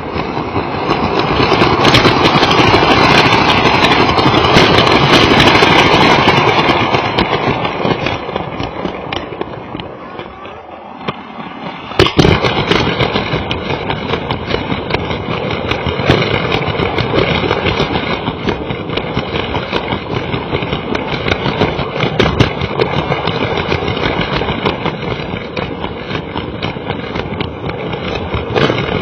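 Lego toy train running, its motor and wheels on plastic track heard from a camera riding on the train: a dense clattering run. It swells early on, dips, gives a sharp click about twelve seconds in, then runs steadily.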